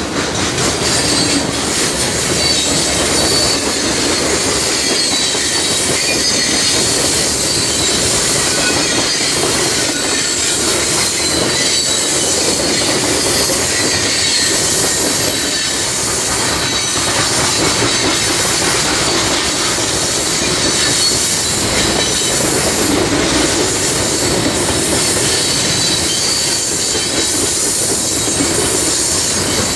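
CSX freight train of open hopper cars rolling past close by: steady wheel-on-rail noise with a high, thin wheel squeal running through it.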